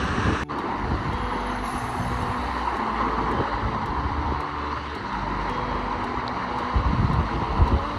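Steady rushing noise of heavy rain and falling water, with gusts of wind buffeting the microphone in uneven low rumbles.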